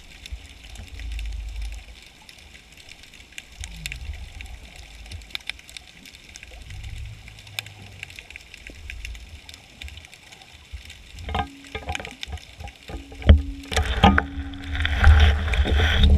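Underwater sound picked up through a camera's waterproof housing: a low rumble of moving water with scattered faint clicks. About eleven seconds in come several louder knocks, and near the end a louder rushing noise with a steady low hum as the camera moves.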